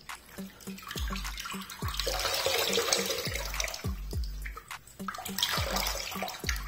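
Water from a running tap splashing into a sink as a soaked cloth towel is twisted and wrung under it, loudest about two seconds in and again near the end. A low, steady beat of background music runs underneath.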